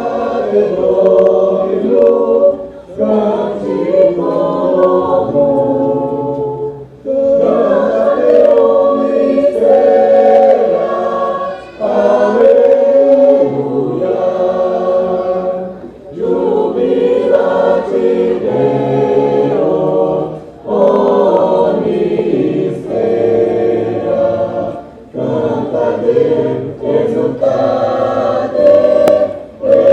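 Choir singing in harmony, several voice parts together, in phrases of a few seconds with brief breaks between them.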